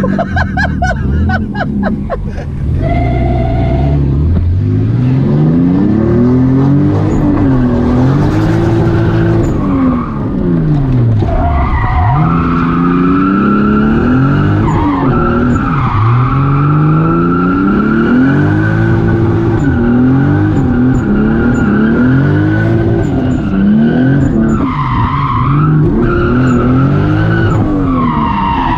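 Twin-turbo 2JZ inline-six in a Nissan 240SX S13 drift car, heard from inside the cabin, revving up and down over and over as the car is driven through a drift run, with tyres squealing on the slides.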